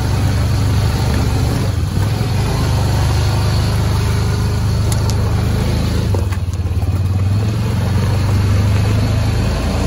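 Honda Pioneer 700 side-by-side's single-cylinder engine running steadily under way on a dirt trail.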